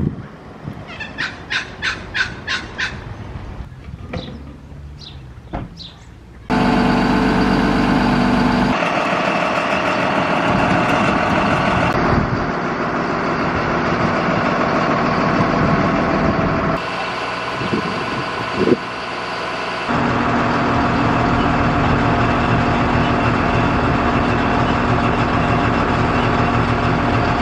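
A quick row of short, high beeps or chirps, then a heavy engine running steadily and loudly, most likely the crane truck lifting the floating fountain unit into the lake.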